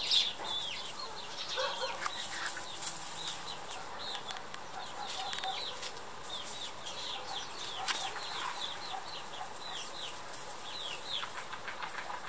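Small birds chirping throughout, many short, high, falling chirps, with a hen's low clucking about two seconds in. A sharp click sounds about eight seconds in.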